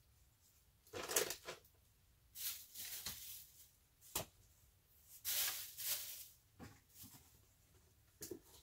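Goods being packed into a cardboard box: several short bursts of rustling and bumping as items and their wrappers are handled and set down, with a sharp knock about four seconds in.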